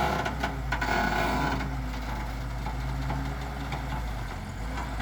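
JCB excavator's diesel engine running steadily, with a few short knocks and a burst of louder scraping-like noise in the first second or so.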